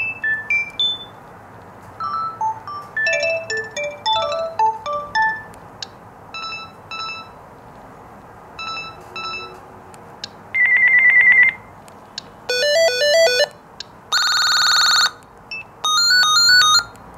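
Gigaset A510 cordless handset's speaker playing ringtone previews one after another as its ringtone menu is scrolled: short electronic melodies of bright beeping notes, then a fast trilling ring partway through, followed by quick arpeggios and a dense warbling ring near the end.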